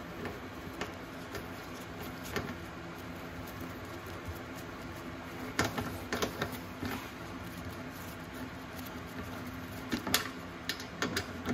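Motorcycle fairing panel being handled and fitted into place: scattered light clicks and knocks of plastic and fasteners, bunched around six seconds in and again near the end, over a steady low hum.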